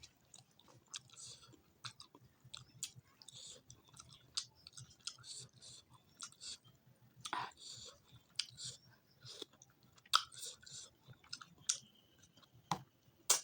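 Close-up chewing of food, mouth open, with irregular short clicks and crackles of lips, teeth and food through the whole stretch.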